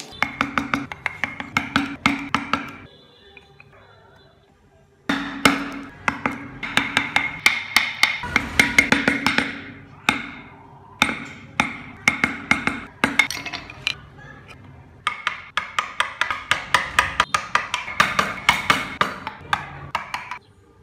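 Wooden mallet tapping rapidly on a carving chisel cutting into wood, several sharp, ringing knocks a second. The taps come in runs of a few seconds with short pauses between them.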